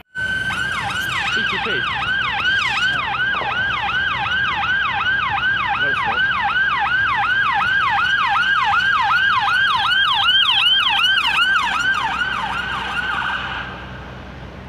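Siren of an emergency response car on a fast yelp, sweeping rapidly up and down about three times a second. It cuts off shortly before the end, leaving a low traffic hum.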